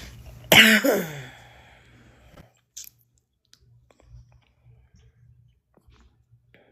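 A short, loud vocal sound from a person, falling in pitch, about half a second in. At about two and a half seconds the background hiss cuts off suddenly, leaving near silence broken by faint scattered clicks. This is the livestream's sound dropping out as the stream freezes.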